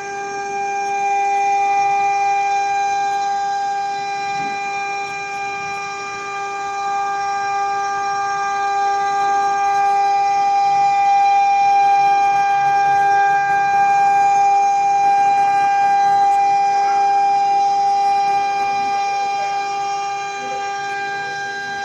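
CNC router spindle running at high speed with a steady, high whine over a noisy rush of cutting. The whine holds one pitch throughout, swelling slightly toward the middle.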